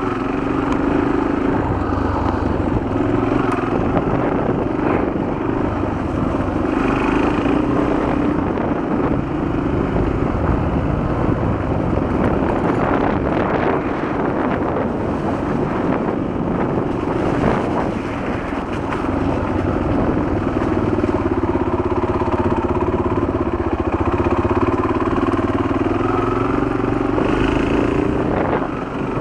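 Honda XL250 single-cylinder four-stroke motorcycle engine running while the bike is ridden along dirt trails, its note rising and falling with the throttle and easing off briefly partway through.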